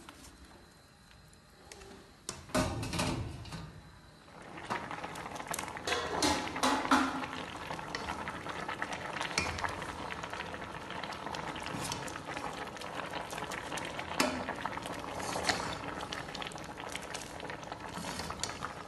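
Steel pot of saag (greens) boiling on a gas stove, bubbling steadily, with occasional clinks and knocks against the pot. A loud clatter comes about two and a half seconds in, and the bubbling sets in about four seconds in.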